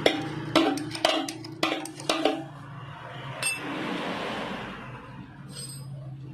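Metal clinks of a wrench and loose engine parts as a motorcycle's rocker arm assembly is unbolted and taken apart: about six sharp clinks in the first two and a half seconds, then one more near the middle.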